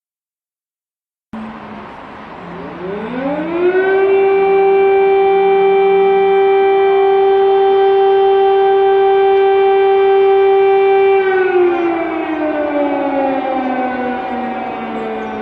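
Air-raid siren sounding an alert: it starts about a second in, its wail rises in pitch over a couple of seconds, holds one steady tone for about seven seconds, then slowly winds down, falling in pitch.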